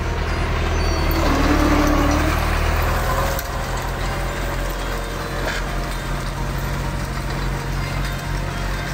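Farm tractor engine running steadily while pulling a rotary hay tedder through cut grass, a little louder for the first three seconds.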